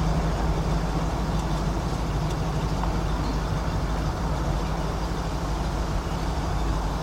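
A steady low engine drone running at an even pace throughout.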